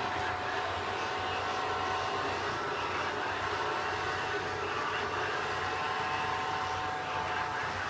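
Robot vacuum cleaner running: a steady motor whir with a low hum and a few constant higher tones.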